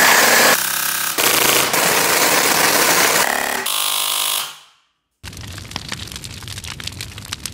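Edited glitch sound effects: loud distorted noise with stuttering, chopped sections, fading out about four and a half seconds in. After a short gap comes quieter crackling with dense irregular clicks, like static.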